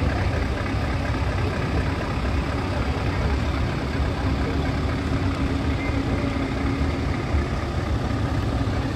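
Heavy diesel truck engines idling, a steady low rumble, with a steady hum joining about four seconds in.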